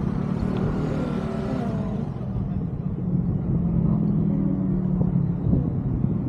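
Motor scooter engine running while riding, a steady low hum that shifts a little in pitch, with road traffic around it.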